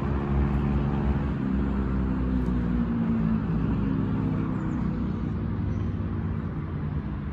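A motor vehicle's engine running with a low hum, its pitch falling about halfway through and the sound slowly fading toward the end.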